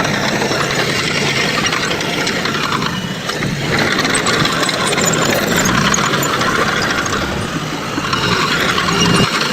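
Heavy earthmoving machinery at work: an engine running steadily with mechanical rattling and clanking over it.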